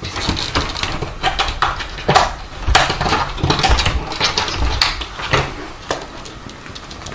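A quick series of plastic knocks and clatters from a pet door flap as a cat squeezes through it.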